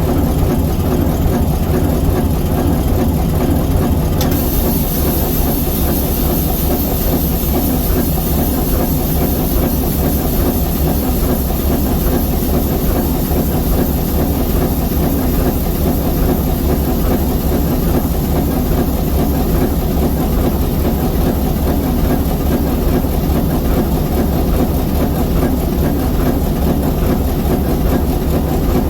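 ALCO S4 diesel locomotive's 539T turbocharged inline six-cylinder diesel prime mover running steadily at a low, even speed. A high hiss joins about four seconds in.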